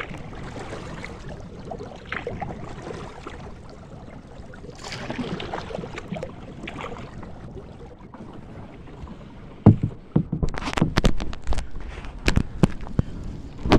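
Water lapping and splashing around a plastic kayak's bow as it glides, swelling every few seconds. In the last few seconds comes a loud, rapid, irregular run of sharp cracks and scrapes as reed stems brush and snap against the hull.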